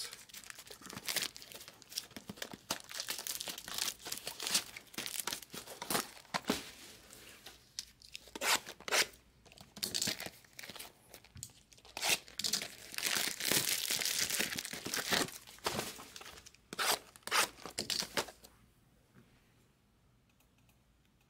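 Packaging being torn open and crinkled on a trading-card hobby box, in irregular rustles and tearing strokes that stop a few seconds before the end.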